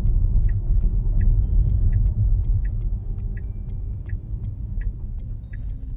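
Road rumble inside a moving car's cabin, with the turn-signal indicator ticking steadily, about once every three-quarters of a second.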